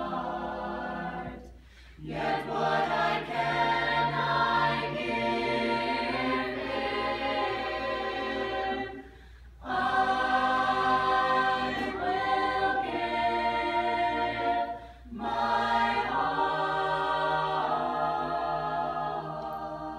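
Mixed choir of male and female voices singing a cappella, holding sustained chords in long phrases. The singing stops briefly between phrases about two, nine and fifteen seconds in.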